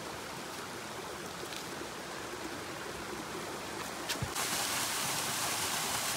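Steady rush of running water from a rocky mountain stream. A little over four seconds in, just after a short knock, it jumps abruptly to the louder, hissier rush of a small waterfall pouring into a pool.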